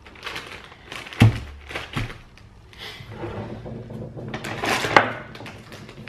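Handling noises from containers being moved on a table: a sharp knock about a second in, another shortly after, then rustling and scraping ending in a click.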